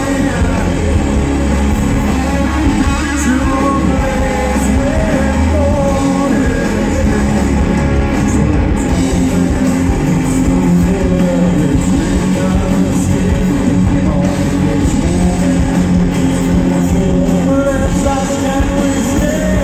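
Live rock band playing loud, with electric guitars, a heavy low end and a male lead singer whose voice is heard near the start and again near the end, as heard from within the audience.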